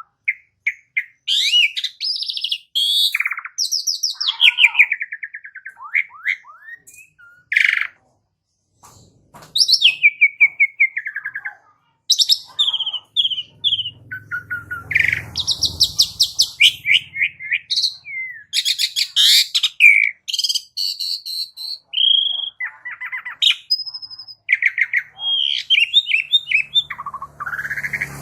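Javan pied starling (jalak suren) singing a fast, varied song of chirps, whistles and rattling notes, with a short pause about eight seconds in.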